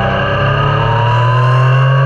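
Yamaha Niken's 847 cc inline three-cylinder engine under acceleration. Its pitch drops briefly near the start, like a gear change, then rises steadily as the revs climb.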